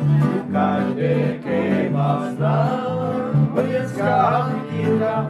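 A Czech tramp folk song sung live with acoustic guitar strumming. The chorus is sung over steady chords.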